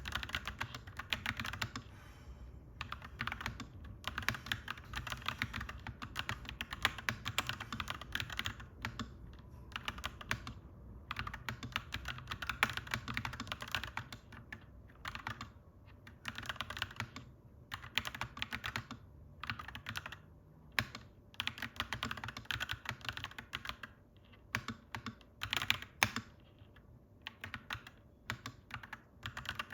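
Fast typing on a clacky mechanical keyboard, in runs of keystrokes broken by brief pauses, over a steady low hum in the background.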